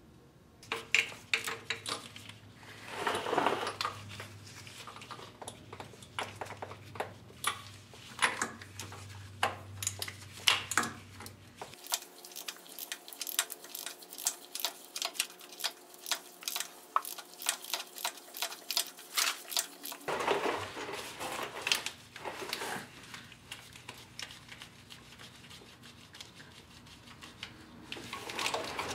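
Ratchet and socket clicking, with small metal clinks in quick, uneven runs, as the engine's oil pressure switch is worked loose.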